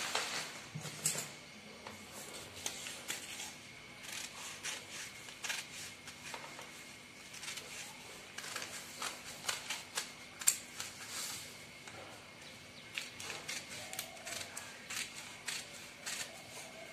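Scissors cutting through folded newspaper: a run of short crisp snips with paper crackling as the sheets are handled.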